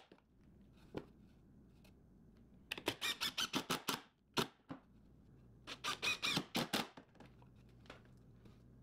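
Screws being driven into 2x12 lumber braces, heard as two short runs of rapid clicking about a second each, with a few single clicks between.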